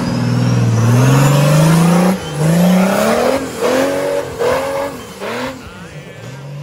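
A rock-crawling buggy's engine revving hard under load as it climbs a rock ledge. Its pitch climbs steadily for about two seconds with a thin high whine rising along with it, then it breaks into a string of five or six short throttle bursts.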